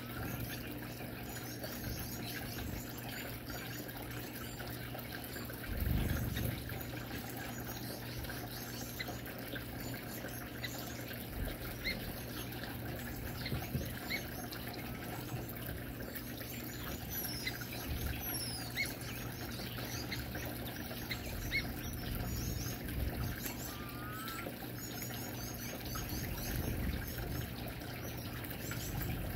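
Gouldian finches chirping in short scattered calls over the steady trickle of a stone water fountain, with a dull thump about six seconds in.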